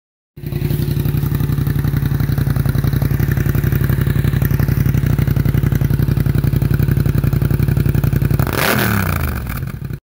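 Motorcycle engine running hard at a steady, high pitch with a fast pulsing beat; about eight and a half seconds in the note breaks and slides in pitch as it comes off the throttle, then it fades out.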